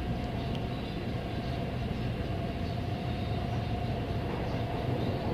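Cabin noise of a Taipei Metro C381 train running between stations: a steady rumble of wheels on rail with a faint steady whine above it.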